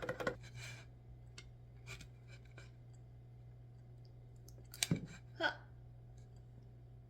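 A fast run of light clicks that stops just after the start, then a few scattered clicks and taps, the loudest about five seconds in.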